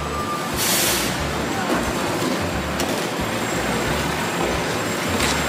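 Busy city street traffic noise, with vehicles running and a low rumble throughout. A short burst of hiss comes just under a second in.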